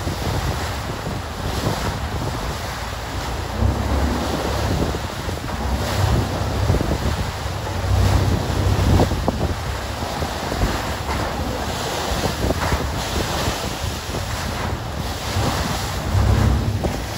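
Wind buffeting the microphone in irregular gusts over a steady rush of churning sea water and spray from a pilot boat's bow wave as it runs at speed alongside a ship's hull.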